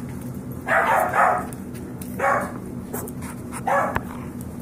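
Five-week-old Yorkshire terrier puppy barking during play: four short barks, the first two close together about a second in.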